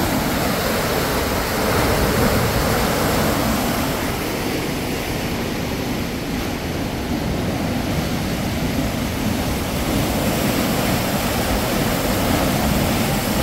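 Canal lock chamber emptying: water let out through the lock's valves rushes and churns in white water below the gates as a steady, unbroken wash of noise.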